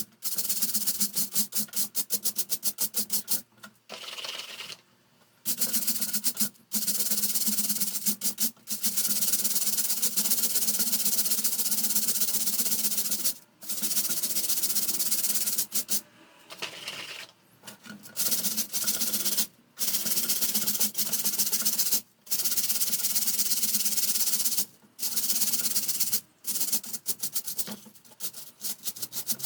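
Fast, rhythmic scrubbing strokes on the parts of an electric fan being cleaned. They come in stretches of a few seconds, broken by short pauses.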